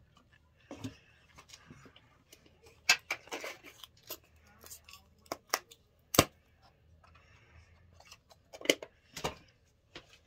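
Makeup items and brushes being handled: a series of sharp clicks and taps with some rustling, the sharpest clicks about three and six seconds in.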